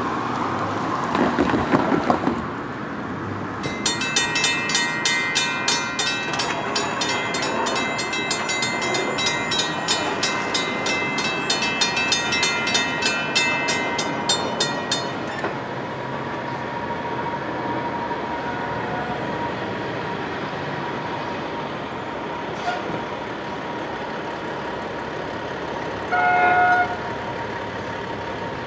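Railroad grade-crossing warning bell ringing in a fast, even rhythm as the crossing gates come down, then stopping abruptly about halfway through. Near the end comes one short toot of the horn on the approaching NJ Transit commuter train's cab car. A road vehicle passes at the start.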